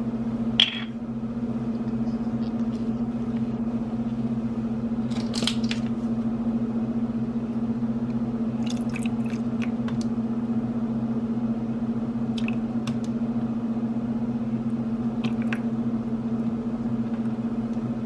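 Steady low electrical hum, with a few light taps and clicks as half and half is spooned from a measuring spoon into raw eggs in a plastic bowl.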